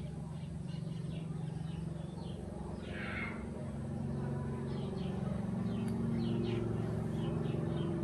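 Small electric motors of a toy RC stunt car with mecanum wheels, running with a steady whirring hum that shifts in pitch as it drives across carpet, growing louder about halfway through.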